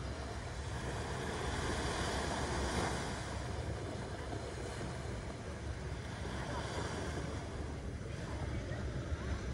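Small waves washing up onto a sandy beach, the wash swelling about two to three seconds in, over a low rumble of wind on the microphone.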